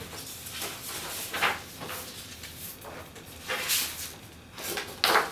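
Sheets of paper being handled and rustled on a tabletop, in a few short bursts, the loudest near the end.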